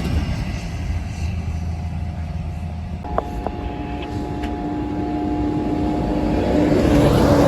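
Low engine and road rumble of a semi truck approaching, growing louder toward the end as it draws near. A faint steady tone starts about three seconds in and holds for several seconds.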